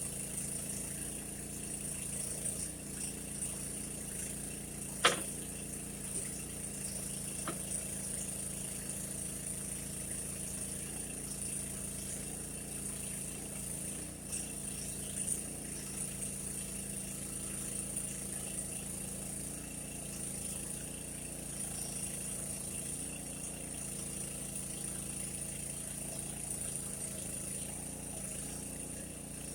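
Mini backhoe's engine running steadily at a set throttle, with a single sharp knock about five seconds in and a couple of fainter ones later.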